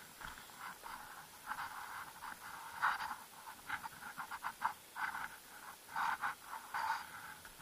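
A person breathing hard in uneven, muffled bursts while scuffing over rock on foot.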